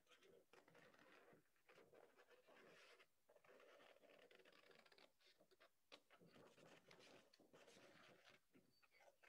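Faint scissors cutting through cardstock: repeated short snips with paper rustling and small clicks from the blades.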